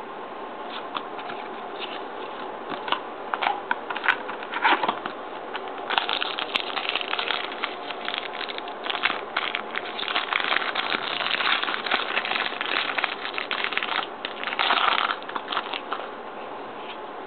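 Crinkling and crackling of a trading-card pack wrapper being torn open and handled, with cards being shuffled through, in irregular bursts over a steady low hiss.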